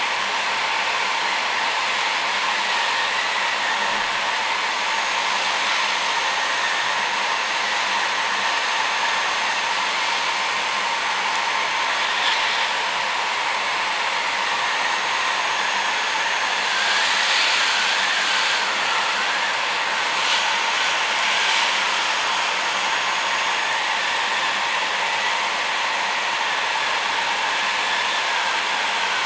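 Construction heat gun blowing a steady stream of hot air, heating the LED board of a lamp for repair.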